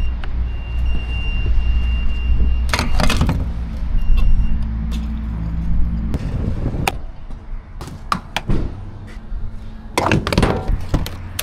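Land Rover Defender's engine running with a steady low hum that drops away about six seconds in, followed by several door clunks and knocks.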